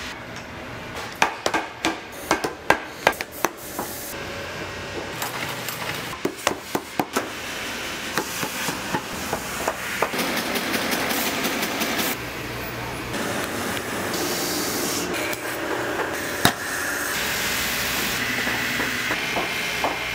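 Boot repair work: a run of sharp hammer taps in the first few seconds and again around six to seven seconds in. Then a powered finishing machine runs steadily as a boot's sole edge is worked against it, with its pitch and level shifting a couple of times.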